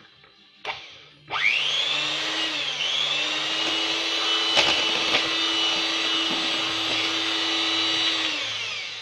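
Electric mixer beating thin liquid pancake batter. The motor starts about a second in after a couple of knocks and quickly rises to a steady high whine, dips briefly once, then winds down and falls in pitch near the end. A sharp knock midway is the beaters striking the bowl.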